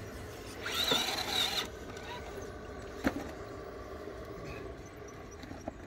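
An RC crawler's small electric motor and gears whirring for about a second, with a wavering high whine, then a single sharp click a little later.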